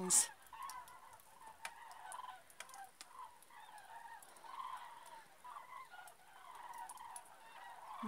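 A migrating flock of common cranes calling overhead: many faint, overlapping trumpeting calls.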